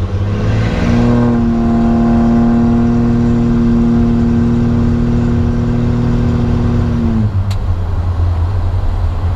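Cummins diesel pickup with a bed-mounted exhaust stack, heard from inside the cab: the engine pulls up in pitch under acceleration for about a second and a half, holds a steady, loud drone for about five seconds, then falls away as the throttle is released. A single short click comes just after.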